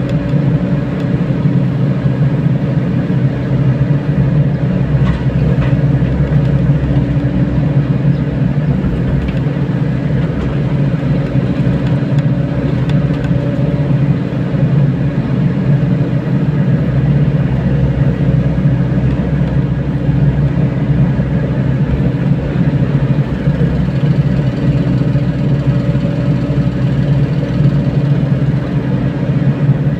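Mini excavator's diesel engine running steadily at a constant pitch.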